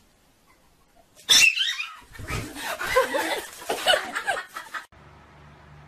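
Small dog and cat scuffling: a sudden loud cry about a second in, then a run of short animal cries for about three seconds that cuts off abruptly. A low steady hum follows.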